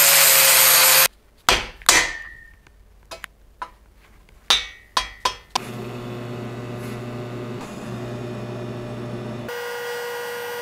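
Angle grinder with a flap disc grinding a steel tube, stopping about a second in. Then a few sharp metal clanks and taps. From about halfway, the steady buzz of a TIG welding arc, which changes tone near the end.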